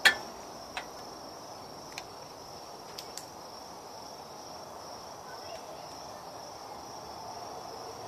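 A sharp click of an empty aluminium drink can pressed into place on a glued column of cans right at the start, then a few faint clicks, over a steady high-pitched chirring of insects.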